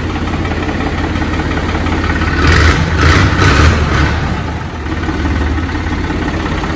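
Ghazi tractor's diesel engine idling steadily. Near the middle it is joined by several louder rushing, hissing bursts lasting about a second and a half, while the power steering is being worked.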